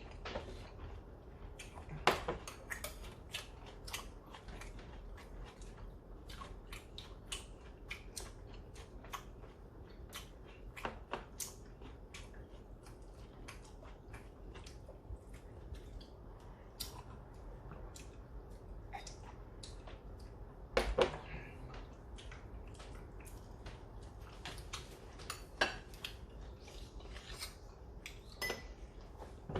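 People eating at a table: steady chewing and mouth sounds with many small clicks of utensils against dishes, and a few louder knocks and clinks.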